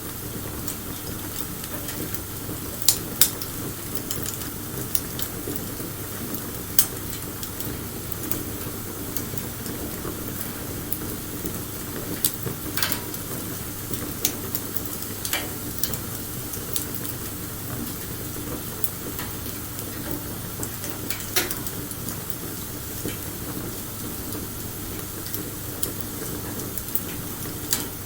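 Wood fire burning: a steady crackle with scattered sharp pops and snaps, a handful of them clearly louder than the rest.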